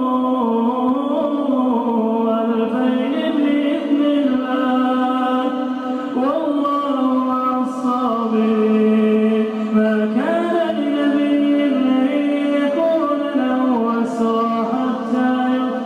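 A solo male voice reciting the Quran in the melodic chanted style of tajweed, holding long drawn-out notes that glide and step up and down in pitch without a break.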